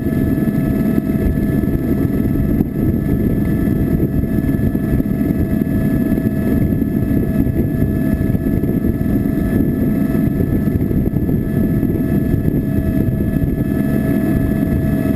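Steady, loud engine noise with a constant whine over a deep rumble, unchanging throughout.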